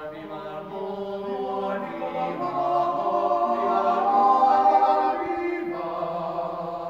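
Male vocal quartet singing a cappella in close harmony, sustained chords swelling to their loudest about four seconds in, then easing off.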